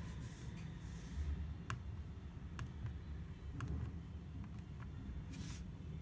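Soft clicks of a small infrared remote control's rubber buttons being pressed, four in a few seconds, over a low steady rumble, with two short bursts of hiss near the start and near the end.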